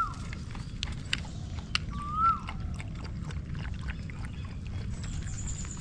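Puppy whining: two short whimpers that rise and fall in pitch, one at the start and one about two seconds in.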